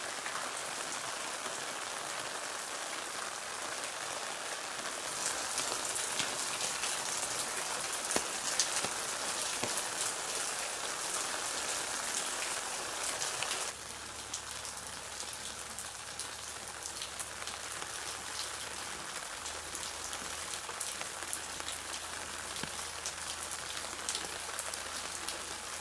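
Steady rain falling, a continuous hiss scattered with the small clicks of individual drops; it drops suddenly to a lower level about halfway through.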